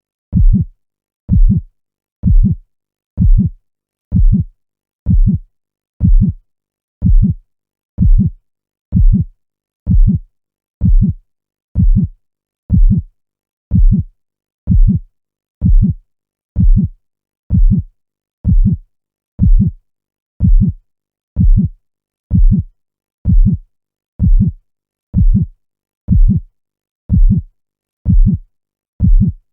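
Heartbeat sound, a steady double lub-dub about once a second, with silence between the beats.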